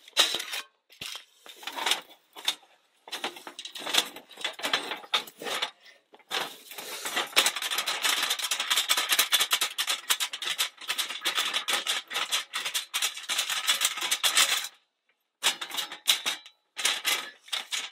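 Ash, embers and small bits of charcoal pouring out of a folded stainless-steel Snow Peak fire pit into a galvanized metal charcoal pot. For several seconds in the middle the small pieces make a dense rattling patter, with scattered metal clinks and knocks from handling the pit and its grate before it and a few more near the end as the pit is shaken out.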